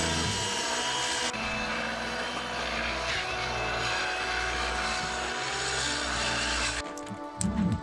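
A power saw running and cutting, with a steady noisy whine, stopping abruptly near the end.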